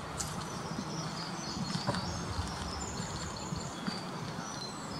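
Faint, short, high-pitched bird chirps over a steady low background rumble.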